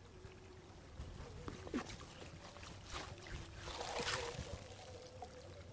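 Water splashing and trickling beside a kayak as a mesh net is moved through shallow river water, with the loudest splash about four seconds in.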